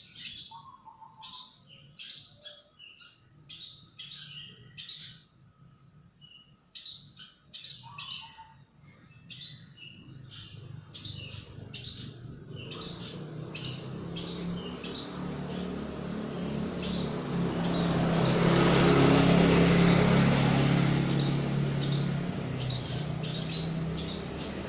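A small bird chirping in short, high, repeated notes. About halfway through, a motor vehicle approaches and passes, its engine hum and road noise swelling to the loudest sound near three-quarters through and then easing off while the chirping goes on.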